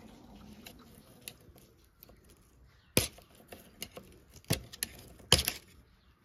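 Sharp metal-on-metal clinks and knocks as the Bendix drive parts of a vintage starter motor are worked off its shaft: a few light ticks, then three loud sharp knocks in the second half.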